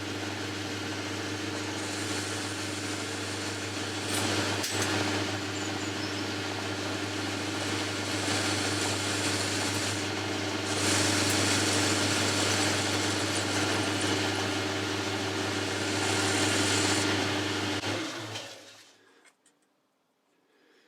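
Boxford metal lathe running while facing a mild steel part in its three-jaw chuck: a steady motor hum under a cutting hiss that grows louder in the second half. The lathe is switched off about 18 seconds in and runs down.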